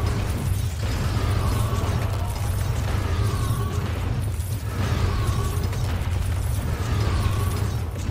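A sailing boat creaking rhythmically as it works in a heavy sea, a falling creak about every second and a half over a steady low rumble of wind.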